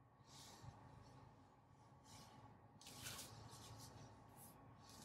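Near silence inside a car cabin: a faint steady low hum with a few soft, short hissy rustles.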